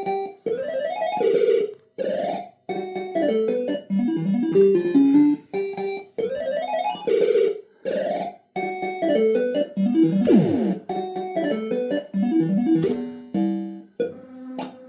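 Electronic beeping tunes from a PCP Supa Streak fruit machine: short phrases of stepped notes and quick rising runs, broken by brief pauses, with a sliding sweep about ten seconds in.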